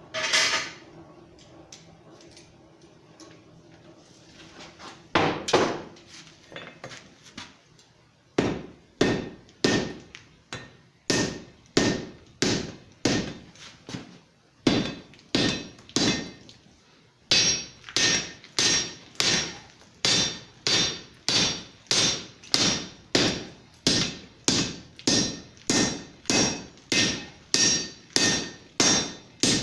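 Blacksmith's hammer striking a hot railroad rail anchor clip on the anvil to straighten it, each blow with a short metallic ring. A few scattered blows come first, then steady blows about one a second that quicken to nearly two a second in the second half.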